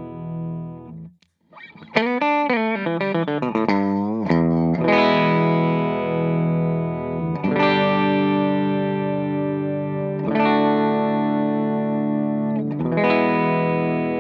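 Electric guitar played through a DC Pedals version 3 compressor pedal. A held chord rings and stops about a second in, then comes a quick run of bent, wavering notes, then four chords struck every two and a half to three seconds, each left to sustain.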